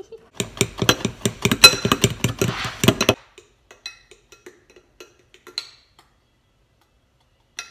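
Wire balloon whisk beating pancake batter in a bowl: fast, rhythmic clattering strokes, about seven a second, for some three seconds, stopping suddenly. Then a few faint clicks of the utensil in the bowl.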